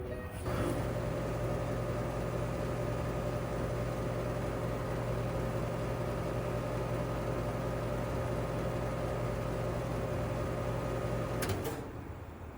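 Outdoor air-conditioner or heat-pump condensing unit running: a steady compressor hum under fan noise. It cuts off suddenly about a second before the end.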